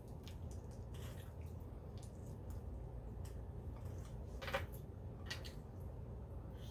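Rotisserie chicken being torn apart by hand and eaten: soft wet squishing of meat and skin with a few short smacks, the sharpest about four and a half seconds in, over a low steady hum.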